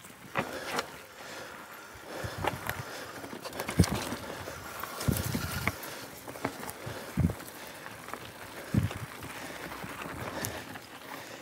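Mountain bike ridden along a dirt singletrack: tyre noise, with irregular knocks and rattles from the bike over bumps in the trail.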